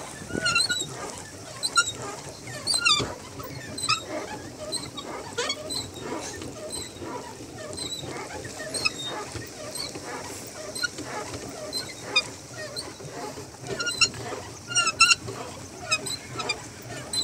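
Short high-pitched squeaks repeating roughly once a second, typical of the pedal and crank mechanism of a swan pedal boat being pedalled.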